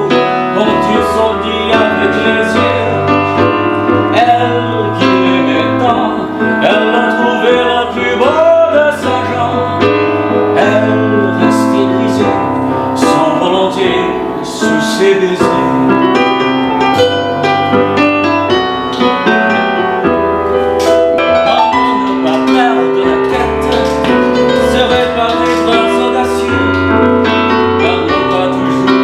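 Piano sound played on an electric stage keyboard: sustained chords over a moving bass line. A wordless gliding voice line comes in at a few points.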